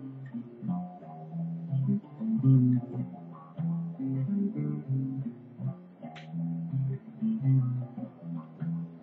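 Electric guitar played in the low register, picking a line of single notes one after another.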